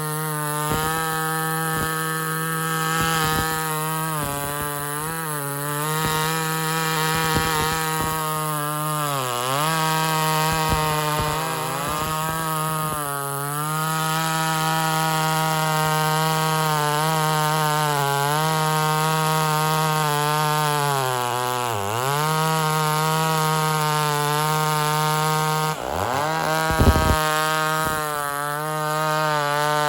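Ported Homelite XL-76/XL-130 hybrid two-stroke chainsaw running at high revs, its pitch dipping briefly about three times as it takes load. The saw is running a tad lean and will not drop into four-stroking, however rich the carburettor screw is set.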